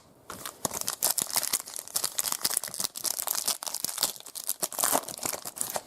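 Trading cards and their plastic pack wrapper being handled close up: dense crinkling and rustling with many small clicks.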